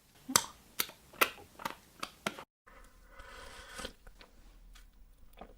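Close-miked ASMR eating sounds: a run of sharp crunches, about two a second, from biting and chewing. After an abrupt cut they give way to a softer hiss with faint mouth sounds.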